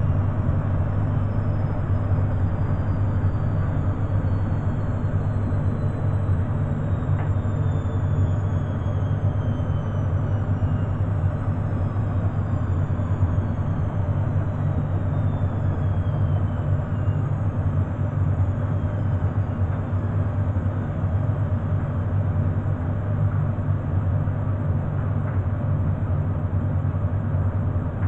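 Beko front-loading washing machine running steadily near the end of its cycle, most likely in its final spin: a loud, even hum from the drum and motor.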